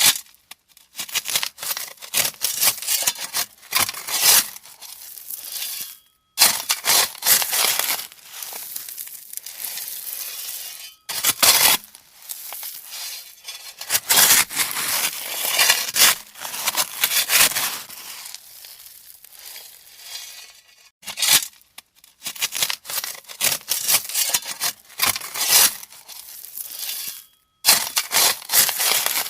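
A shovel scraping into gravel, the stones crunching and sliding as it scoops, over and over, with brief pauses between runs of strokes.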